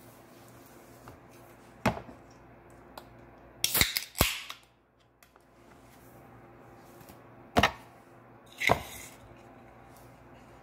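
A soda can handled on a wooden table: a few sharp knocks and clicks a few seconds apart, with a louder cluster of two or three about four seconds in.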